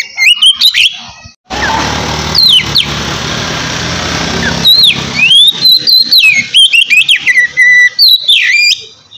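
Oriental magpie-robin singing loud, clear whistled phrases that glide up and down. About a second and a half in, a loud rushing noise covers the song for about three seconds, then the whistling carries on.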